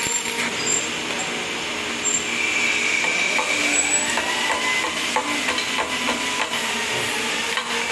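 Stick (SMAW) arc welding: a steady crackling hiss, with a few sharp metallic clicks.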